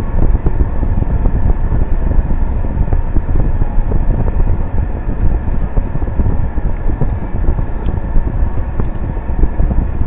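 Steady low rumble of a car moving slowly, heard from inside the cabin, with wind buffeting the microphone.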